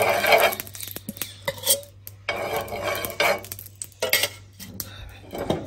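Steel spoon scraping and clinking against a cast-iron tawa as ghee is spread over the griddle, in several strokes with short pauses between them.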